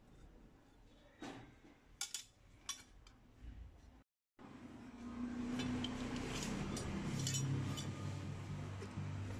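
Old steel Honda HRJ216 mower blades clinking against each other as they are handled, a handful of sharp metallic clinks. After a sudden cut a little under halfway through, louder background music with a steady low tone takes over.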